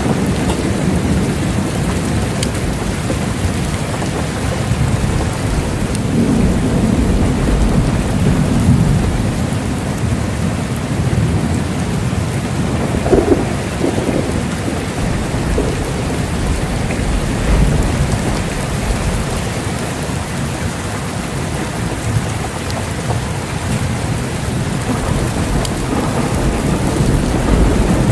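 Steady rain falling, with low thunder rumbling underneath; the rumble swells a few seconds in and again briefly near the middle.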